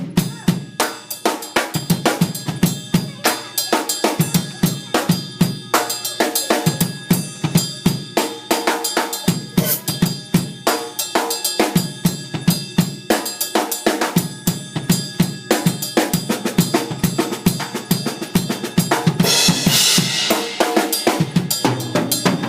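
Drum kit being played with sticks: a fast, steady run of snare and bass drum strokes with cymbals and hi-hat, and a ringing cymbal wash about nineteen seconds in.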